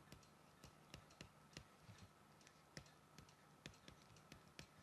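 Faint, irregular keyboard typing: light key clicks at about two to three a second, as Verilog code is entered.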